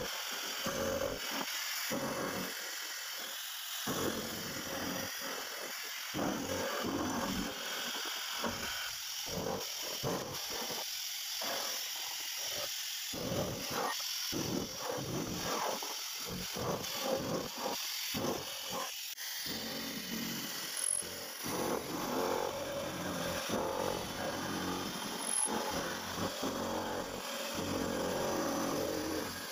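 CNC vertical machining centre face milling a rusty steel workpiece, the cutter running steadily through the metal. The cut sounds choppy and uneven at first and becomes fuller and steadier from about two-thirds of the way in.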